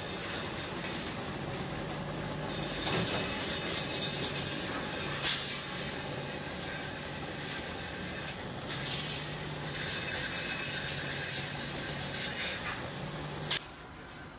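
Bicycle rim roll-forming machine running, its motor and gear-driven rollers making a steady mechanical din with a low hum as the metal strip feeds through, with a sharp click about five seconds in. The noise cuts off suddenly near the end.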